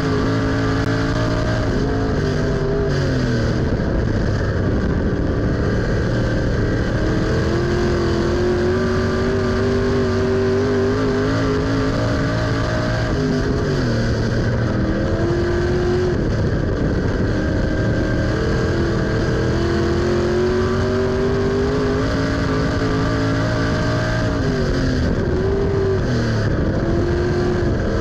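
USRA stock car's V8 engine at racing speed, heard from inside the cockpit. Its pitch drops three times as the throttle comes off for the turns, then climbs again down the straights.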